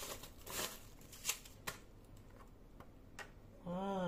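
Handling noise from a plastic-cased analog multimeter being moved on a tabletop: a short rustle, then a few light clicks and taps. A brief vocal sound comes near the end.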